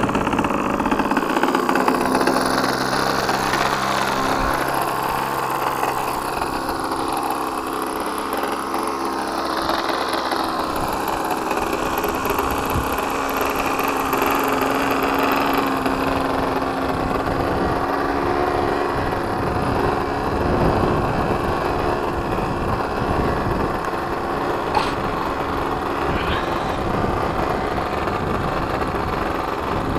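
Thunder Tiger .61 two-stroke glow engine with a Genesis quiet pipe running steadily on a nitro RC model plane, its pitch shifting only slightly.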